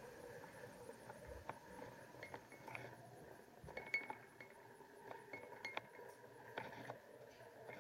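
TramCam camera trolley running along its line as the homemade winch reels it in: faint, scattered light clicks and small metallic clinks, a few sharper ones in the middle and later part.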